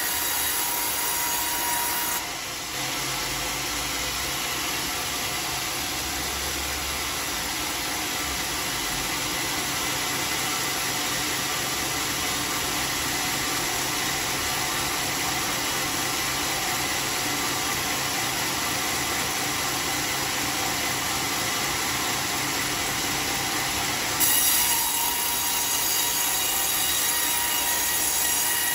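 Homemade band sawmill running and sawing through a teak log, a steady hissing, squealing mechanical noise. It drops slightly about two seconds in and grows louder again a few seconds before the end.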